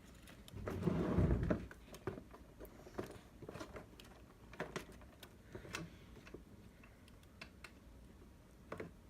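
Handling noise at a repair bench: a brief rustle about a second in, then a scattering of light clicks and taps of small parts and tools being handled.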